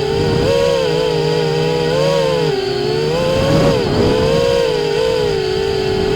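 FPV quadcopter's electric motors and propellers buzzing in flight, the pitch wavering up and down with the throttle and dipping briefly about four seconds in.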